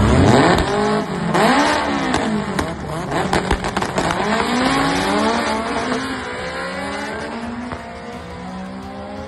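Drag-race cars, among them a 1987 Honda CRX, revving in short rising-and-falling blips at the start line. About four seconds in they launch and pull up through the gears, each gear a longer rising note that drops at the shift, and the sound fades as they run away down the track.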